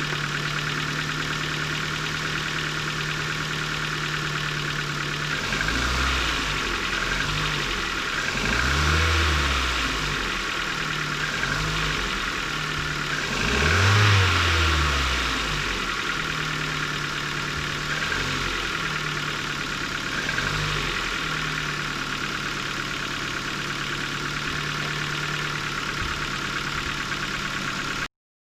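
Ford Focus mk2 1.6 petrol engine idling steadily shortly after a cold start, blipped up in revs about five times, the biggest rev about halfway through, before settling back to idle. The owner says it clatters for two or three minutes when cold and suspects the valves.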